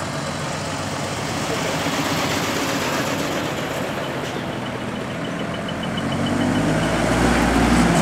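Decorated trucks driving slowly past, their diesel engines and exhausts running with a steady rumble. A rapid high beeping is heard around the middle, and near the end a truck's deep engine rumble swells as it passes close.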